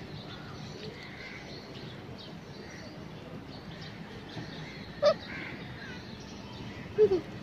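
Outdoor ambience with faint bird chirps, then loud crow caws: one sharp call about five seconds in and two short caws near the end.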